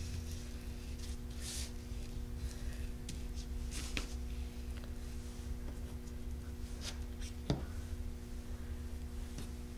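A steady low hum with a few faint rustles and light ticks as hands press a plastic diamond mesh down into wet texture paste.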